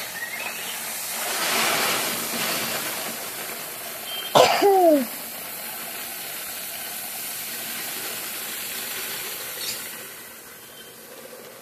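Wheat grain pouring steadily from a sack onto a pile, a continuous rush that eases off near the end. About four seconds in, a person makes one short, sharp vocal sound, falling in pitch, like a cough.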